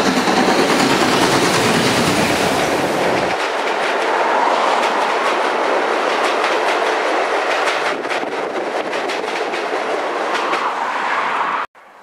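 Steam locomotive and its passenger coaches passing close by under a bridge. The locomotive's heavy, deep running noise fills the first three seconds or so, then the coaches roll past with wheels clicking over the rail joints. The sound cuts off suddenly near the end.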